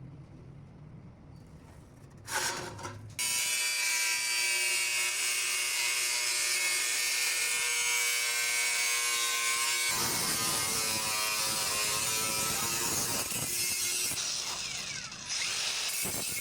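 An electric power tool starts about three seconds in and runs steadily with a whine. About ten seconds in its sound turns rougher and wavers in pitch, and it dips briefly near the end.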